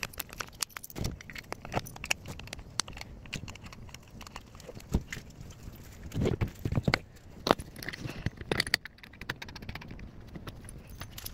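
Handling noise: wooden sifter frames and boards knocking and scraping on a tabletop, with small metallic clinks, in irregular clicks and a few heavier thuds.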